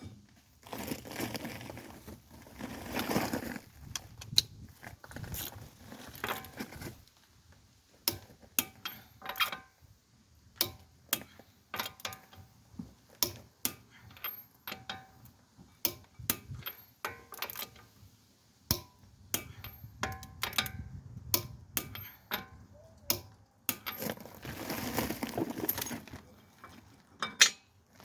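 Hand tools and metal brake parts clinking and clicking, many separate sharp knocks, with stretches of denser scraping clatter near the start and again near the end.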